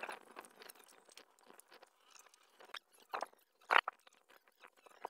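Scattered light clicks and knocks, with two louder short rattling scrapes a little past the middle; no engine is running.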